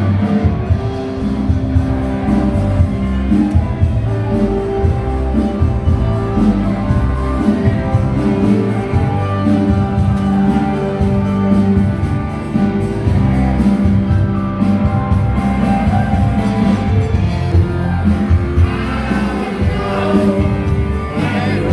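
Live band playing amplified music with electric guitars and a singer.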